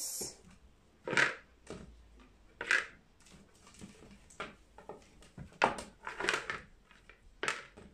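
Bundles of braiding hair wound on small wooden sticks clattering and rustling as handfuls are put into a plastic bowl: about six short clatters with quiet gaps between them.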